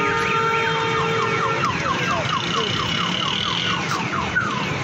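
Car alarm cycling through its tones: a fast up-and-down wail turns, about a second and a half in, into a run of quick falling chirps about five a second, with a steady high beep partway through, over steady background noise.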